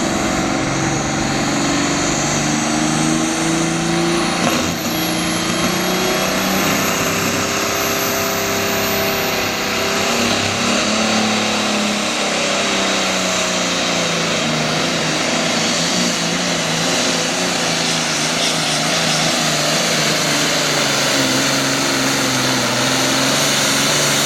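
Super Farm class pulling tractor's turbocharged diesel engine running hard under load as it pulls the sled. A thin high whistle climbs in pitch over the first several seconds and then holds.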